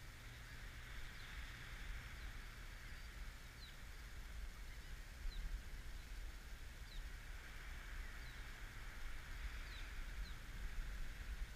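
Birds calling: a handful of short, high chirps, each falling in pitch, scattered through the stretch over a steady low rumble.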